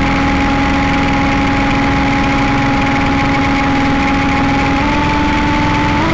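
Improvised electronic music score: a loud, steady drone of held tones over a dense, rumbling noise bed, with the pitch stepping up about five seconds in and again near the end.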